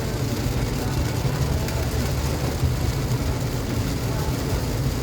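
Heavy rain pouring steadily, an even hiss with a low rumble underneath.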